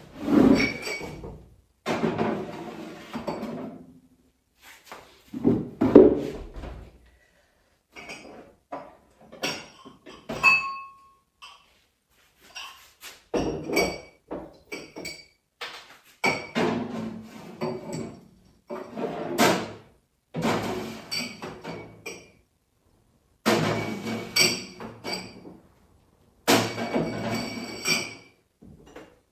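Household items being handled and set down: knocks and thuds with the clink of glass and dishes, in short bursts that stop abruptly between them.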